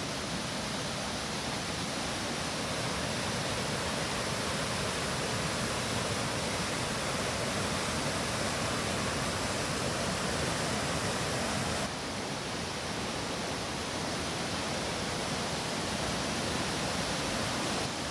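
Waterfall running: a steady rush of falling water, dipping slightly in level about twelve seconds in.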